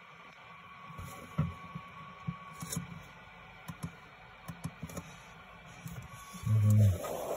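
Scattered light clicks of a laptop keyboard and trackpad being used, over a faint steady hiss. A short low hum lasting under half a second near the end is the loudest sound, followed by a brief rustle.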